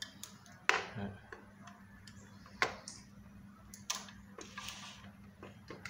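A few sharp clicks and knocks with light rustling as an analog multimeter and test wires are handled and set on the floor, three clicks standing out over a faint steady hum.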